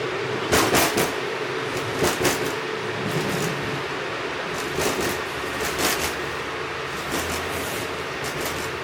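Light rail train running, heard from on board: a steady rumble with a constant hum, and irregular sharp knocks and clatters from the wheels on the track, a cluster of them about half a second to a second in.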